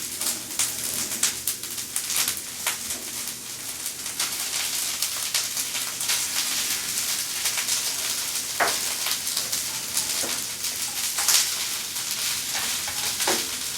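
English peas and sliced onion frying in olive oil in a hot sauté pan: a steady sizzle with many small crackles and a few sharper pops.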